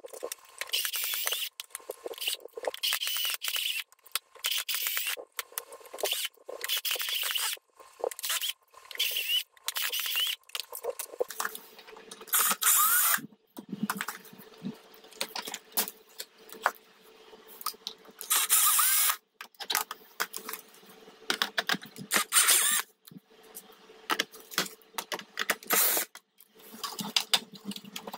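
Cordless drill-driver run in a quick string of short bursts on the small screws of a 3D-printed plastic tank hull. After about eleven seconds the bursts become fewer and longer.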